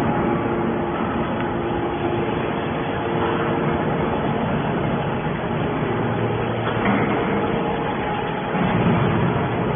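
Hydraulic scrap aluminium baler running: a steady machine noise with a few held tones, which shifts about seven seconds in.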